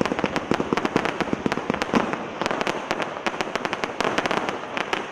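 Fireworks display cake firing its red and green crossette shells: a rapid string of sharp pops and bangs, coming in clusters and thinning out near the end.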